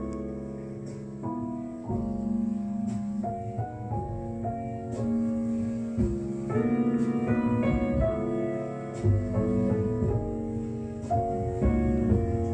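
Piano music played through a Bell Carillon 6060 tube amplifier and heard from its loudspeakers, getting louder about halfway through.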